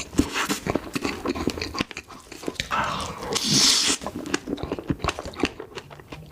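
Close-miked eating sounds: biting and chewing with many quick crunchy clicks, and a longer, louder noisy stretch about three seconds in.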